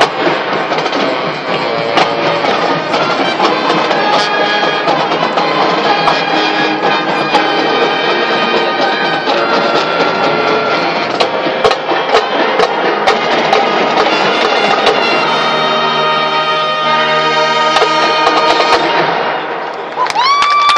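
Marching band playing, brass over a drumline with sharp percussion hits, building to a long held brass chord near the end that fades out.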